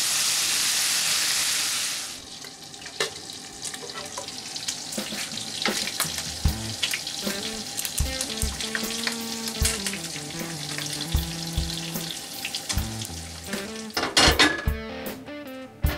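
Bacon frying in a cast-iron skillet: a loud, steady sizzle for the first two seconds, then quieter crackling and spitting. Background music comes in about six seconds in.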